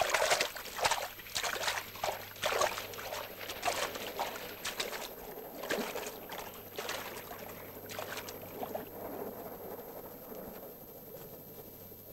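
Water splashing in irregular bursts as hands paddle in the sea beside a floating board. The splashes thin out and fade after about eight seconds.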